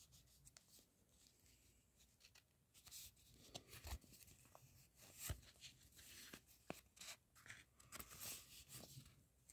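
Paper mailing envelope being handled, rustling and crinkling faintly, with scattered soft clicks and taps from about three seconds in.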